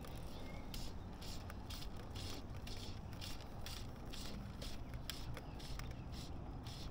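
Fly line being stripped by hand through the rod guides in short quick pulls, each pull a brief rasp, about three a second, to work a small surface fly back.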